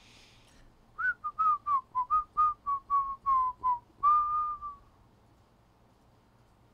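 A person whistling a short tune: about a dozen quick notes, then one longer held note.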